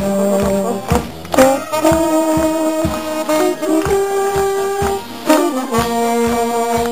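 Small brass band playing a tune: tenor saxophone, tuba and trombones holding sustained melody notes over a steady beat of about two to three pulses a second.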